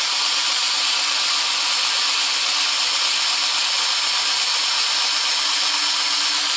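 Cordless drill running steadily at one constant speed, turning a tiny drill bit through a guide as it bores a small pilot hole into a wooden rifle stock. The whir is even throughout, with a constant low hum under it.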